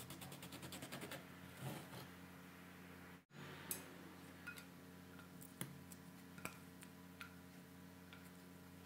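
A small kitchen knife sawing through an orange on a wooden cutting board in quick, rapid strokes, followed after a short break by scattered light taps and clinks as orange slices are set down on a plate, over a faint steady hum.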